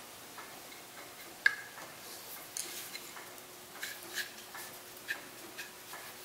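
Irregular light metallic clicks and taps of small lathe parts being handled: the top slide and its round swivel plate turned over in the hands, and small screws set down on the table. The sharpest click comes about a second and a half in.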